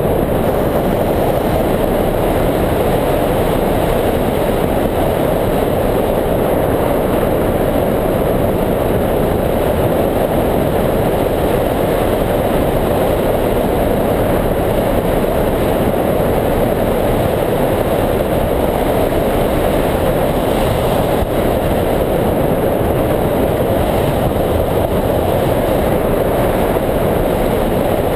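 Steady, loud rush of wind over a wing-mounted camera's microphone as a hang glider flies, an even roar with no break or change.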